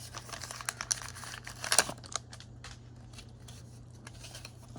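Foil booster-pack wrapper crinkling and tearing as it is handled and opened, busiest and loudest in the first two seconds, then only faint rustles over a steady low hum.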